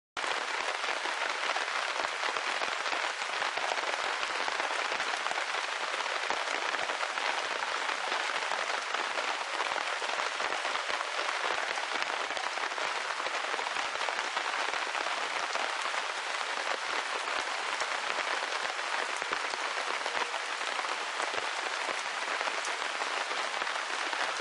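Rain falling steadily: an even, dense hiss of drops with many small separate taps in it.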